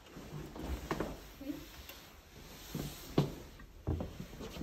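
A few faint clicks and knocks from a room door being unlocked with a key and pushed open.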